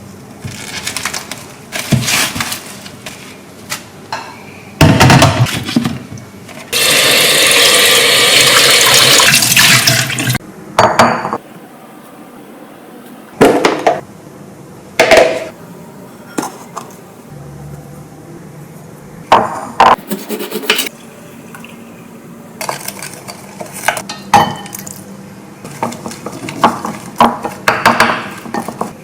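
Kitchen work: a tap runs steadily for about three and a half seconds, and short knocks and clatters of pots, dishes and utensils come and go around it.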